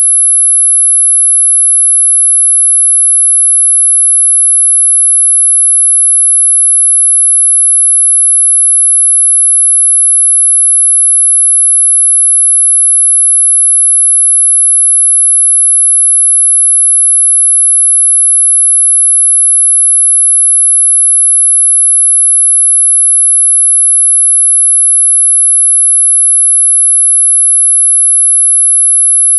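A single steady, high-pitched pure sine tone at about 11 kHz, a synthesised tone for masking high-pitched tinnitus ringing, held loud and unbroken with no other sound.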